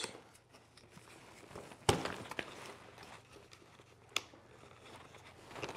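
Nylon fabric and webbing of an Initial Ascent IA5K hunting backpack rustling as the load lifter straps are unclipped from the frame, with two sharp clicks about two seconds apart as they pop off.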